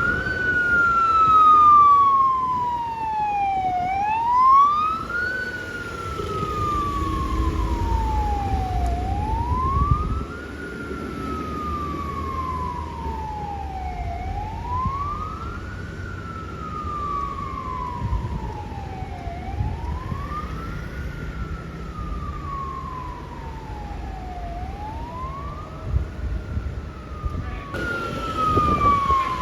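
Fire truck siren wailing on emergency response, a quick rise and slower fall repeating about every five seconds, with a fainter second siren and engine and road rumble underneath. Near the end it cuts abruptly to another fire truck's siren.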